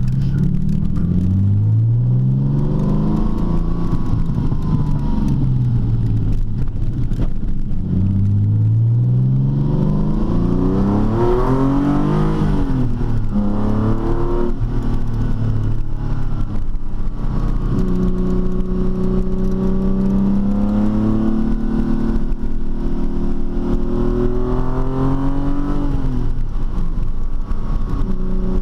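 TVR T350's 3.6-litre Speed Six straight-six engine pulling hard, its pitch climbing and then dropping back several times as it accelerates through the gears, with a longer, slower climb near the end.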